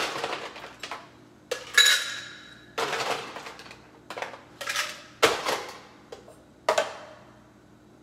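Ice cubes clattering into a stainless steel cocktail shaker in a series of sharp rattling drops, about eight in all, one with a brief metallic ring.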